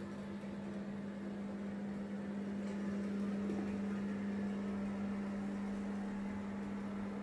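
Steady electrical hum with a few higher overtones over a faint hiss, growing slightly louder about two seconds in.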